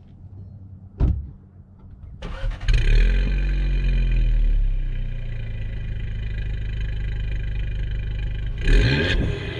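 VW Jetta 1.4 TSI turbocharged four-cylinder, fitted with a 3-inch downpipe, being started. After a sharp click about a second in, the starter cranks and the engine catches with a loud flare of revs, then settles to a steady idle. A brief rev blip comes near the end.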